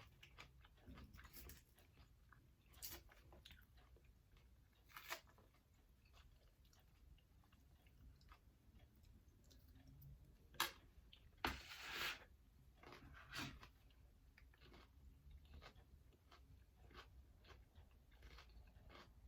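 A person chewing and biting food close to the microphone: soft, irregular crunches and mouth clicks, with a few louder crunches about ten to twelve seconds in.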